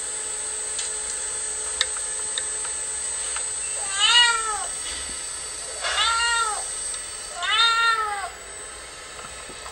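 Domestic cat meowing three times, about two seconds apart. Each call rises and then falls in pitch.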